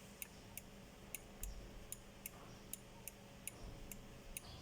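CNC router running a fine 3D engraving pass in wood: a faint steady hum with light, sharp ticks about three times a second.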